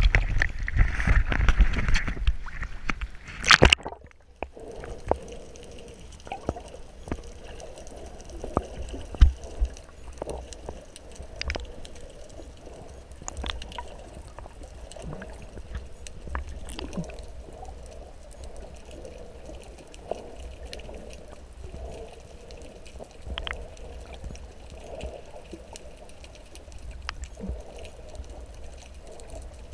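Sea water splashing and sloshing against a GoPro camera held at the surface. About four seconds in, a splash cuts off suddenly as the camera goes under. From there it is muffled underwater sound: a low rumble with scattered clicks and small pops.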